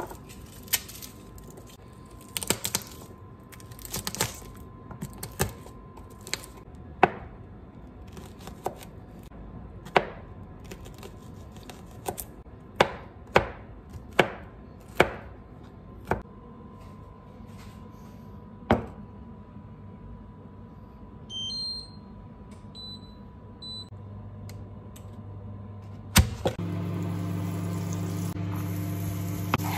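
Kitchen knife chopping garlic on a plastic cutting board: irregular single knocks, some a second or more apart, some in quicker runs. Toward the end come a few short electronic beeps, one sharp clack, then a steady sizzle with an even hum as butter melts in a frying pan being stirred with a wooden spoon.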